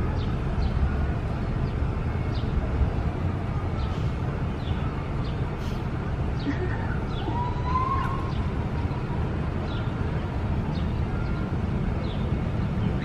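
City street traffic noise, a steady low rumble, with short high chirps repeating about every half second and a brief whistling glide about seven seconds in.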